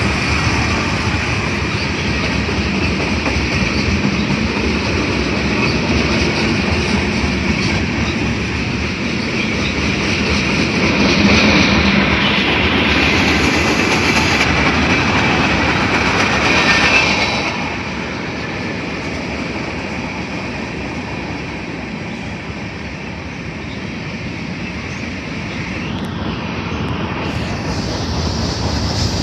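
Train cars rolling past on the rails: a steady rumble and clatter of wheels on track, louder for a few seconds past the middle and easing off somewhat about two-thirds of the way through.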